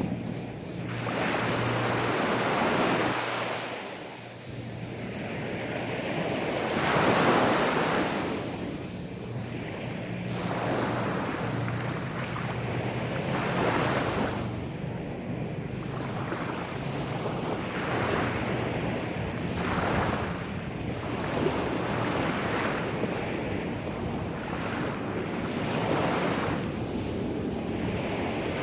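Gentle sea waves washing onto a sandy beach, each surge swelling and drawing back every few seconds.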